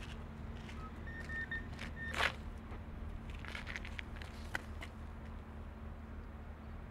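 Crawler crane's diesel engine running at a steady low hum while it hoists a submerged car out of the harbour. Scattered clicks and one brief loud rustle about two seconds in sit over the hum.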